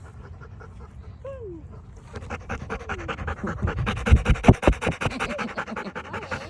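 A dog panting in quick, even breaths that grow louder about two seconds in. There is a short falling vocal sound about a second in, and a few loud low thumps near the middle.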